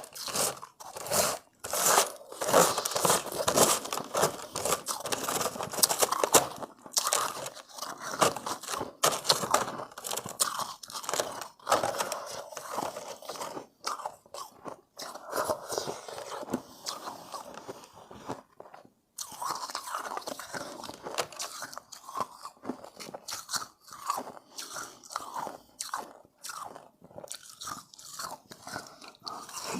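Close-miked biting and chewing of refrozen shave ice: dense, irregular crunching with sharp crackles, pausing briefly about two-thirds of the way through.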